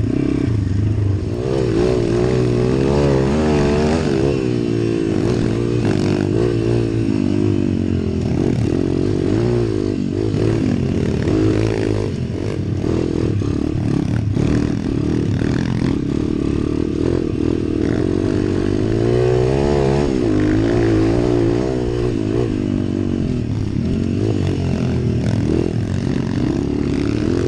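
A 140cc YX single-cylinder four-stroke pit bike engine being ridden hard, its pitch rising and falling again and again with the throttle. Rattle and clatter come from the bike over the rough dirt trail.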